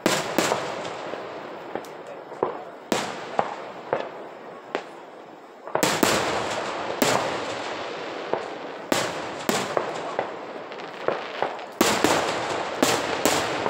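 Aerial fireworks shells bursting one after another: sharp bangs, each trailing off in a rolling echo. A heavy volley comes about six seconds in, and the bursts come thick and fast near the end.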